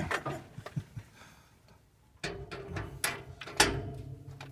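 Scattered metallic knocks and clunks inside a steam boiler's steel firebox as tools and gear are handled, a few in the first second and the loudest about three and a half seconds in. A steady low hum comes in a little after two seconds.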